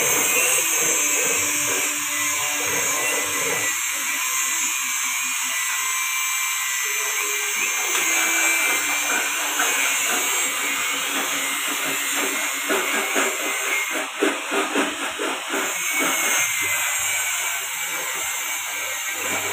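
JG 25 electric grass chopper running at speed, its blades cutting grass stalks fed into it, with a dense, irregular crackle of cutting from about eight seconds in.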